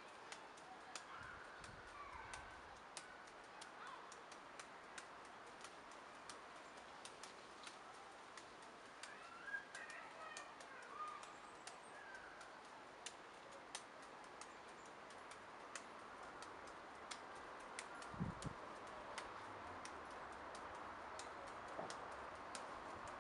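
Faint, repeated soft ticks of juggling balls being caught and thrown in the hands during a five-ball 645 pattern, with birds chirping in the background.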